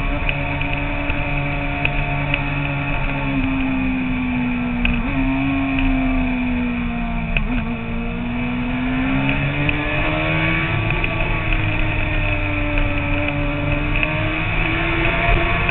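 Sport motorcycle engine running at road speed, its pitch sagging a little from about three seconds in and climbing back up again from about eight seconds on.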